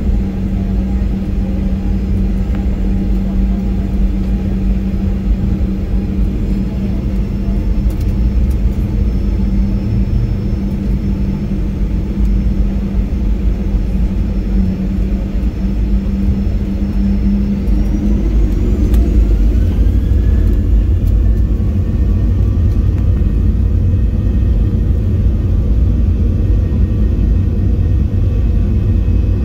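Boeing 737-800 cabin noise: a steady low engine rumble with a humming tone at low power. About 18 seconds in, the CFM56-7B engines spool up for takeoff, a rising whine over a few seconds that settles into steady higher tones as the rumble grows a little louder.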